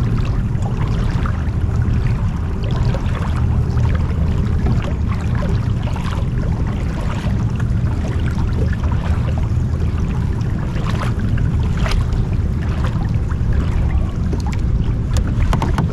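Water lapping and trickling against a kayak's hull on choppy water, over a steady low rumble of wind on the microphone, with scattered small splashes.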